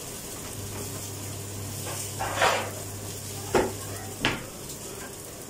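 Kitchen clatter: a short scrape, then two sharp knocks of a cabinet door or drawer and dishes being handled, over the steady sizzle of meatballs searing in a pan.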